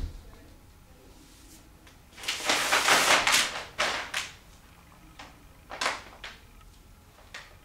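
Rustling for about a second and a half, then a few light, separate knocks and taps, from a barefoot person moving about on a paper-covered floor.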